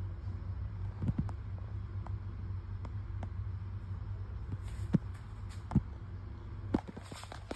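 A steady low hum, with a few short knocks: one about a second in, then more around five to seven seconds in.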